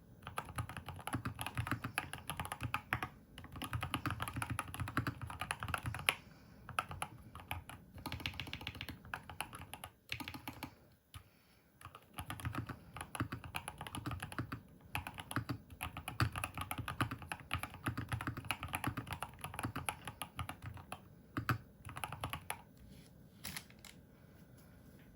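Fast typing on a Keychron K2 HE keyboard with Gateron double-rail magnetic (hall-effect) switches and PBT keycaps, giving a clacky rather than thocky sound. There are short pauses, a longer lull a little before halfway, and sparser keystrokes near the end.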